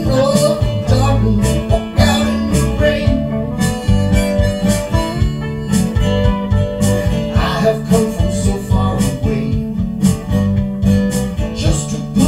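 Harmonica solo played over an acoustic guitar keeping a steady rhythm, an instrumental break in a blues-tinged song.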